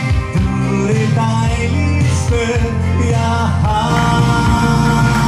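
A man singing a pop song into a handheld microphone over backing music, holding a long note near the end.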